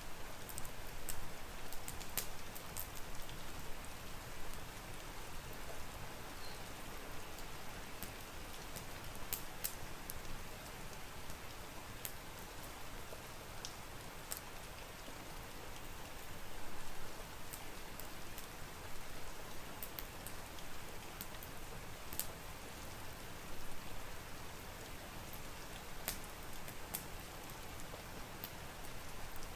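Steady rain hiss with irregular sharp pops and crackles from a wood fire in a fireplace.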